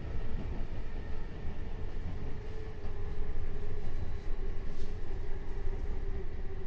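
Kintetsu 8000 series electric train running, heard from inside the passenger car: a dense low rumble of wheels on rail, with a faint steady whine that sinks slowly in pitch.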